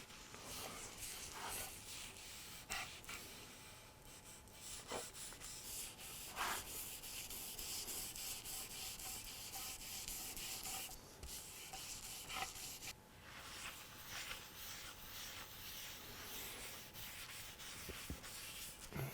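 Steady back-and-forth rubbing on a quartersawn white oak chair part, as a hand works its surface. A few light knocks and clicks sound along the way, the sharpest about six and a half seconds in.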